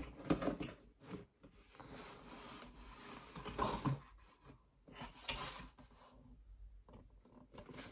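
A cardboard box being handled and its flap lid opened, with cardboard and paper rubbing and scraping in irregular short bursts.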